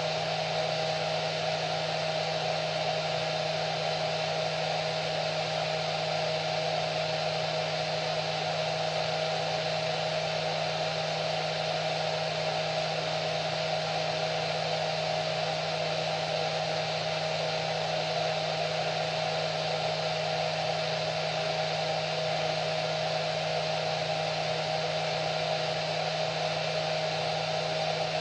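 Hair dryer running steadily: an even rushing of air with a constant motor hum and a steady whine, unchanging throughout.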